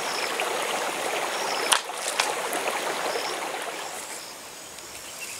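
Shallow rocky stream flowing and splashing over stones, with a single sharp knock about two seconds in. The water sound grows quieter near the end.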